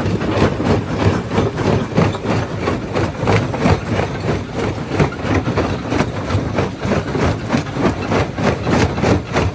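Primary jaw crusher running and crushing rock: a steady machine drone under a rapid, even run of knocks and cracks as the jaw works the stone.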